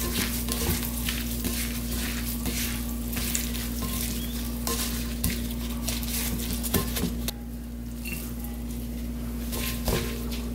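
Gloved hand tossing and squeezing seasoned julienned Korean radish salad (musaengchae) in a glass bowl: an irregular wet, crackly rustle of the radish strips. It quietens after about seven seconds, with a few more rustles near the end.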